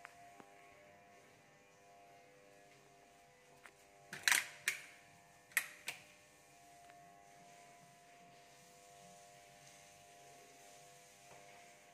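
Four sharp clicks or clinks in two pairs, about four and five and a half seconds in, over a faint steady hum made of several held tones.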